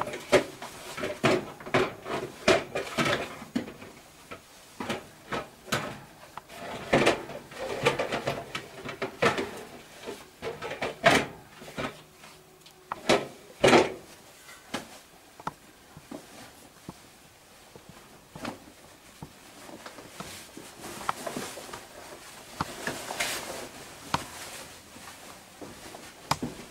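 Irregular knocking and clattering with scraping and rustling, as a caver's gear, helmet and a plastic drum bump against a metal bar gate. The loudest knocks come in the first half, and softer scraping and rustling follow toward the end.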